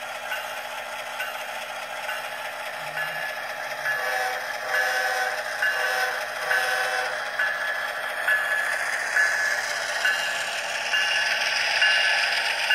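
HO-scale model freight train rolling along the track, its wheels clicking over the rail joints about twice a second with a rattling clatter that grows louder as the cars pass close. Underneath runs the steady diesel engine sound from the Bachmann locomotive's DCC sound decoder, with a pulsing tone for a few seconds in the middle.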